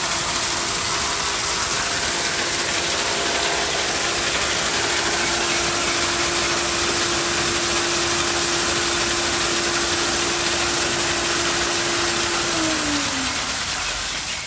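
Filter pump running during a backwash, with a steady hum over the rush of waste water spraying out. About thirteen seconds in the pump is switched off: its hum slides down in pitch as it winds down and the rush fades.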